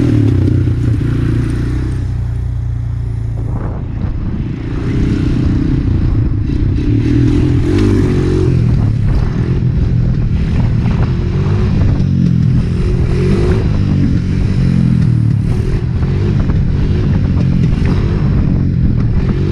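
Honda TRX250EX quad's single-cylinder four-stroke engine running hard under throttle while the rider holds a wheelie. The engine note drops for a moment about four seconds in, then comes back up and stays high, wavering as the throttle is worked.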